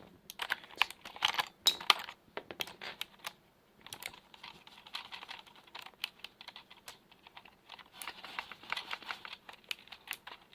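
Keys and a keycap on a mechanical keyboard with Kailh Box tactile switches clicking and clacking under the fingers, in several flurries of quick clicks with short pauses, as a keycap is worked on a tight-fitting switch stem.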